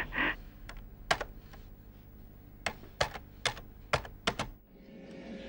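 Typing on a computer keyboard: about a dozen irregular key clicks, some in quick pairs, that stop about four and a half seconds in.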